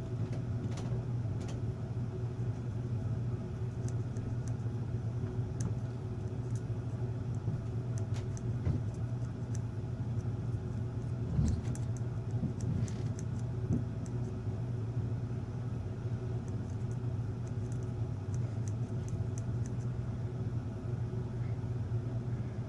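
Steady low background hum with a few faint tones in it, overlaid by occasional faint clicks and one soft knock about eleven seconds in as small metal parts are handled and marked.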